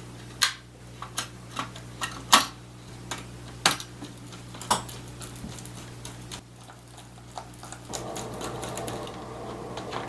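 Irregular sharp clicks and taps of plastic laptop parts being handled and pressed together during reassembly, about a dozen of them, then a denser rustling noise sets in near the end.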